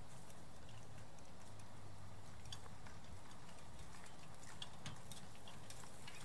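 Several soldiers' boots walking on a dry pine-forest floor, irregular crunches and twig snaps that grow busier from about halfway through, over a low steady hum.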